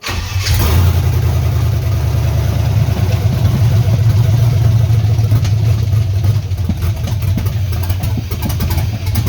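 LS V8 engine in a swapped 1979 Ford F-150 dump truck catching right at the start and running rough and uneven, with irregular sharp ticks over a heavy low rumble. It is running awful with a misfire, which the owner is chasing to a cylinder that isn't firing and a knock he can't place.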